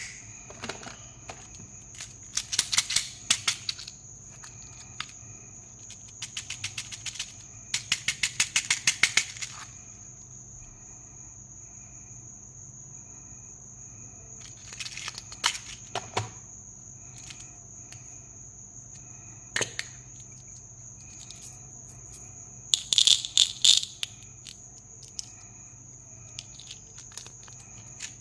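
Plastic candy toys and packaging being handled: several bursts of rapid clicking and rattling with single clicks between them, over a steady high-pitched whine.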